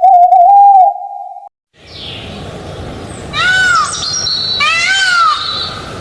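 A short steady call that cuts off abruptly, then after a brief gap a bird calling repeatedly over a hissy background. The calls come about a second and a half apart, each a single note that rises and then falls.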